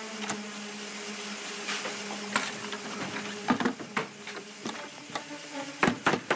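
A low sustained music drone, with a series of sharp clicks and knocks from a metal bolt on a wooden plank door being handled; the loudest pair of knocks comes near the end.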